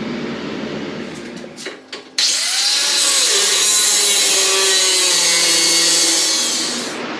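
A power tool starts abruptly about two seconds in and runs steadily with a loud, harsh hiss for about five seconds, then stops, preceded by a few light clicks.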